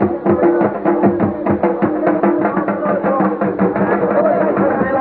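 Rapid, steady drumming over a continuous droning tone: folk music played by musicians at the match.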